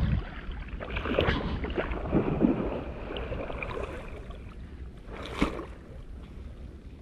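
Wind buffeting the microphone over lapping sea water, with a short sharp sound about five and a half seconds in.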